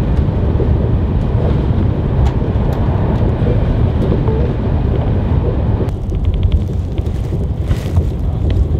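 High-speed train running, heard from inside the passenger carriage as a steady low rumble, with a few light clicks.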